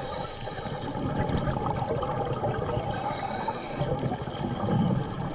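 Underwater bubbling and gurgling from divers breathing through surface-supplied air hoses, over a faint steady hum.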